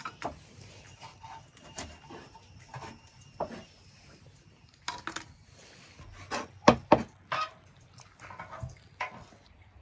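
Metal tongs scraping and clinking in an open wood-stove firebox and against a samovar as hot embers are moved, a series of separate knocks with the loudest cluster about two-thirds of the way in. Near the end, light splashing of water in a pan of fish.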